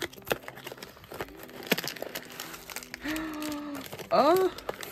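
Cardboard kit box being opened at the end and its packaging handled, with crinkling and rustling of paper and plastic wrap. About three seconds in a person's voice gives a short held hum, then a louder rising wordless exclamation.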